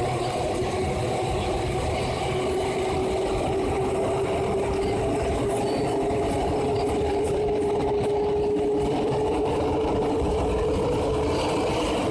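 Rubber-tyred MP89CA metro train running through a tunnel, heard from inside the car: a rolling rumble under a steady traction-motor whine that climbs slowly in pitch as the train gathers speed. This trainset's motor has an unusual, odd-sounding note.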